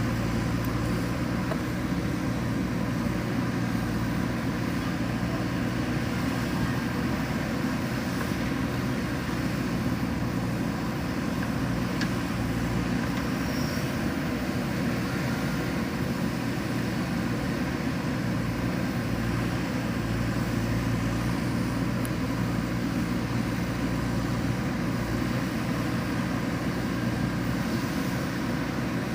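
Diesel engine of a JCB backhoe loader running steadily at an even speed.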